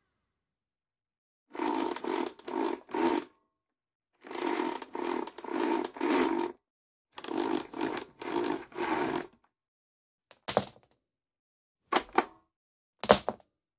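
Vacuum cleaner sounding in three runs of about four short bursts each, every burst a steady hum over a noisy rush that cuts off sharply, followed by three separate sharp clicks or knocks near the end.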